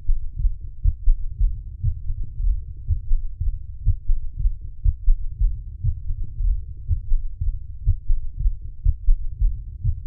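Heart sounds of a patient in congestive heart failure, recorded through a digital stethoscope: repeated low, dull beats in a quick steady rhythm. An extra third heart sound (S3) follows the second sound in diastole, giving the galloping rhythm that marks heart failure.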